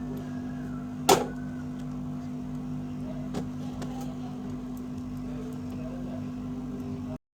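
Steady electric hum of a hot-air heat gun running, with one sharp click about a second in and a fainter click a couple of seconds later. The hum cuts off abruptly near the end.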